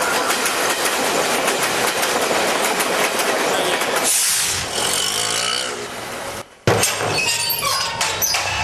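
Train running along the track with a steady clatter. About four seconds in it gives way to a falling whoosh, then a brief hush and a sudden loud bang.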